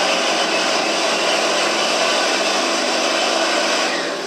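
Heavy-duty Chevrolet Silverado pickup's engine running hard under full load while dragging a truck-pull sled, a loud, steady noise that eases off near the end.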